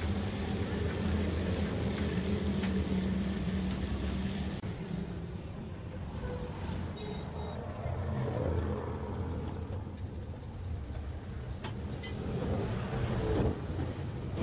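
An engine running steadily, a low hum; about four and a half seconds in the sound changes abruptly to a duller hum with a few light knocks.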